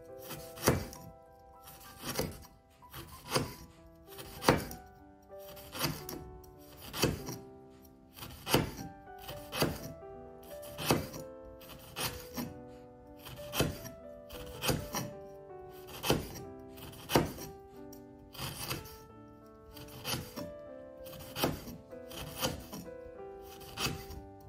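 Chef's knife slicing through a lemongrass stalk onto a wooden cutting board, one sharp thunk about every second and a quarter, over background music.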